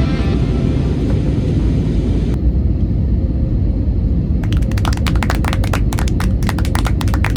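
Steady low rumble of an airliner cabin in flight. From about halfway, a rapid run of sharp clicks or rattles sounds over it.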